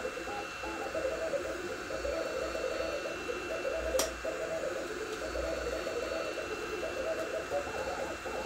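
Two Trees Sapphire Plus 3D printer running Klipper while printing at 130 mm/s: its stepper motors whine in short tones that jump quickly from pitch to pitch as the print head changes direction, over a steady cooling-fan hiss. A single sharp click comes about four seconds in.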